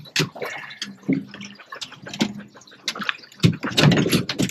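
Water splashing and slapping with irregular sharp knocks, growing louder and busier near the end.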